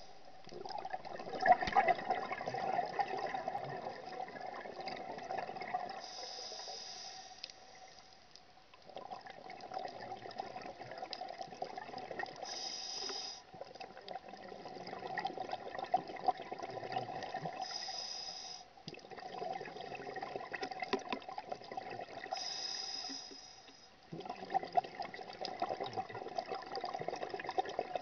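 Scuba regulator breathing underwater: long bubbling exhalations of several seconds, each followed by a short high hiss of inhalation through the demand valve, repeating about every five seconds.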